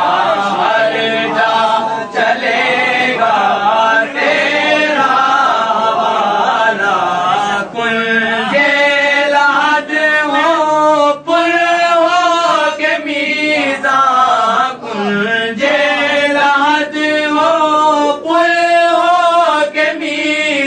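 Chant-like singing with long, wavering held notes, going on without a break in the melody.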